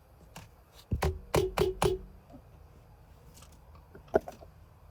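A car horn tapped in several quick short beeps about a second in, followed by a single click near the end.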